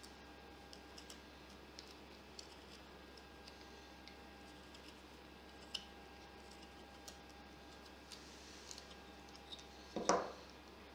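Carving knife paring chips from a butternut block by hand: faint, scattered crisp clicks of the blade cutting through the wood. Near the end, a louder knock and rustle as the wooden block is set down on the table among the shavings.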